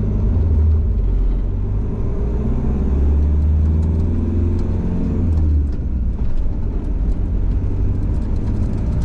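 Citroën van's engine running steadily while driving, heard from inside the cab. The engine note eases off about five and a half seconds in, after which the tyre noise grows rougher, with light crackling and ticks.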